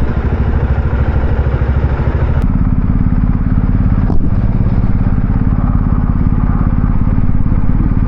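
BMW 1250 boxer-twin motorcycle engine running under way, heard from on the bike. Its note changes about two and a half seconds in, and there is a brief click about four seconds in.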